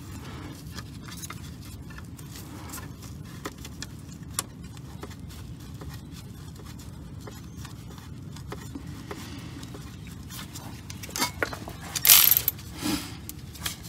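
Small metal clicks and scrapes as a wheel speed sensor and its mounting bracket are worked into place at a rear wheel hub, over a steady low rumble. About twelve seconds in there is a short, louder metallic clatter, like tools or hardware jangling.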